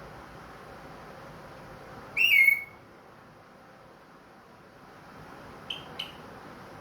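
Orange-headed thrush giving one loud whistled note about two seconds in, sliding slightly down in pitch, then two short sharp chips close together near the end.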